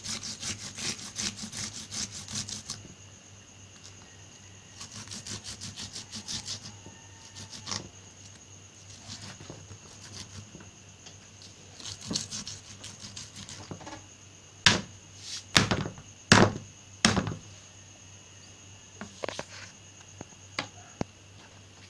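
Onion being grated on a hand grater: rapid scraping strokes at first, then a shorter run a few seconds later. About two-thirds of the way through come four loud sharp knocks.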